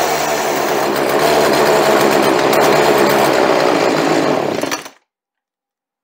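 Poulan two-stroke chainsaw engine running steadily on the bench during carburetor adjustment, then dying out just before the end. The idle is set too low and the carburetor is still out of adjustment.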